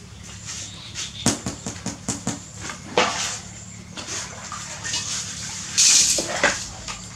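Puppies suckling at their mother's teats: small wet smacking and clicking noises, mostly in the first half. There is a sharper burst about three seconds in and a short breathy hiss near the end.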